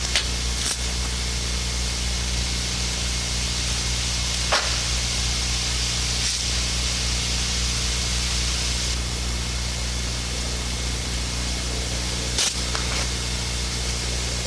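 Steady hiss with a low electrical hum under it, the soundtrack's background noise, broken by about four short faint clicks or knocks.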